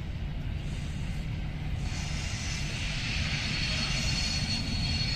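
A WDM2A diesel locomotive hauling an express train approaches: a steady low rumble that slowly grows louder, joined about two seconds in by a steady high whine and hiss.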